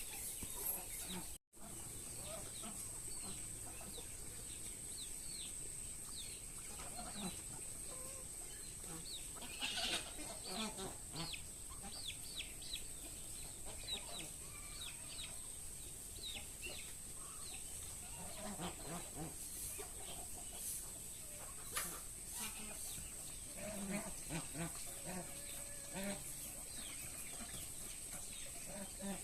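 Chickens clucking on and off, with short high chirps and a steady high-pitched drone behind them. The sound cuts out for a moment about a second and a half in.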